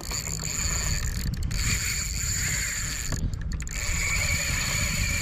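Spinning reel being cranked to bring in line against a hooked fish, its gears giving a steady high whine that stops briefly twice when the winding pauses.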